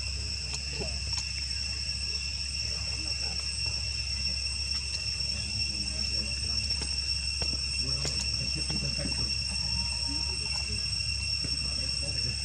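Steady insect chorus: a continuous high-pitched drone that holds one level throughout, over a low steady rumble.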